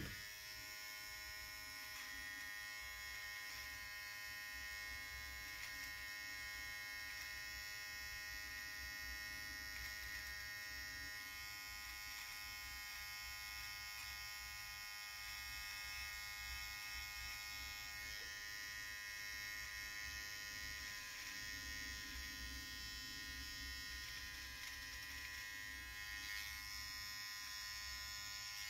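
Gold cordless edging trimmer running steadily, its blades buzzing with an even, unbroken hum as it edges a beard line.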